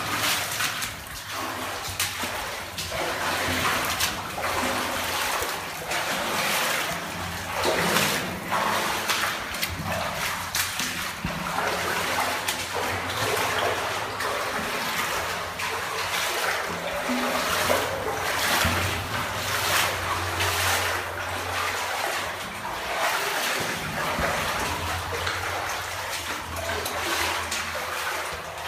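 Footsteps splashing through shallow water on a rock tunnel floor, roughly one step a second, over a steady wash of water noise.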